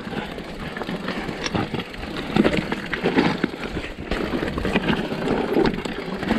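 Mountain bike rolling down a rocky singletrack: tyres crunching over loose stones and the bike rattling, with sharp knocks as the wheels hit rocks.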